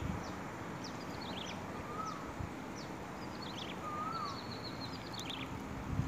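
Birds calling over a steady background hiss. One short whistled note comes back about every two seconds, with quick high chirping phrases between.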